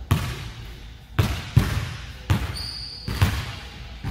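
Basketball dribbled on a hardwood gym floor: about six bounces at an uneven pace, each echoing in the large hall. A short high squeak comes about two and a half seconds in.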